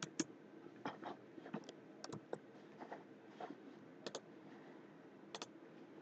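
Faint, irregular clicking of a computer mouse and keyboard, about a dozen clicks with some in quick pairs, over a faint steady hum.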